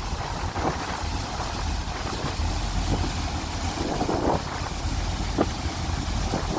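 Wind buffeting the microphone in irregular gusts over the low, steady rumble of a passenger ferry under way.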